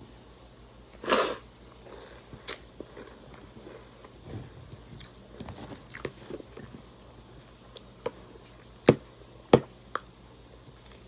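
Close-miked chewing of dry, crunchy cereal: a loud crunch about a second in, then scattered small crackles, and two loud, sharp cracks near the end.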